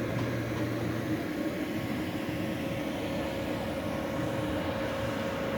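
Steady mechanical drone with a constant pitched hum; a lower hum drops out about a second in.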